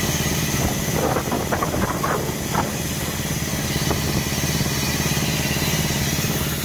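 Stothert and Pitt steam crane's engine running on compressed air instead of steam, with a steady, rapid exhaust beat as the crane slews round. A few brief higher-pitched bursts come between about one and two and a half seconds in.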